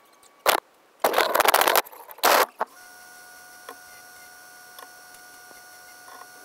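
A few short, loud, noisy bursts in the first half, then a bench-top Delta sander's motor running steadily with a thin high whine. A few light clicks of small wooden pieces come over it.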